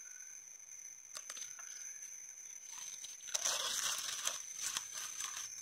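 Tall grass rustling and crackling, with a few faint clicks and a louder, busier rustle from about three seconds in.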